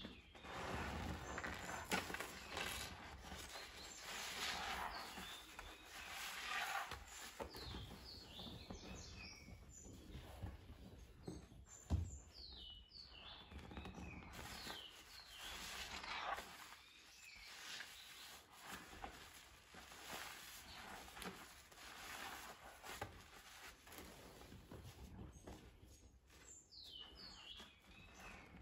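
Foam-soaked sponges squeezed and kneaded by hand in a basin of soapy water: repeated wet squelching with foam and water running back into the basin. Bird chirps come a few times in the background.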